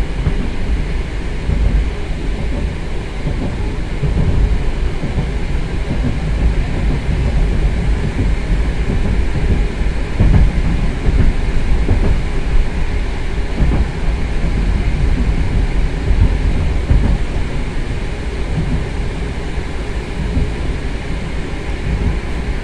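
Running noise heard inside an 81-765.2 metro passenger car travelling at speed: a loud, steady rumble of wheels on rail, with a few faint knocks partway through.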